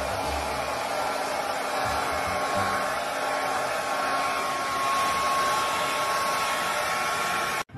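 Handheld hair dryer running steadily, blowing air over a puppy's coat: a constant rush of air with a faint steady whine. It cuts off suddenly near the end.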